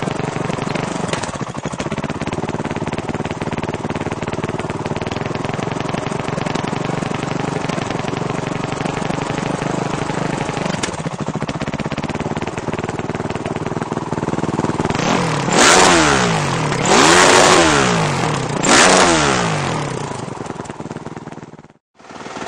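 Honda CRF450 dirt bike's single-cylinder four-stroke engine idling steadily at the exhaust, then revved three times in quick succession near the end, each rev rising and falling back to idle. The sound cuts off abruptly just before the end.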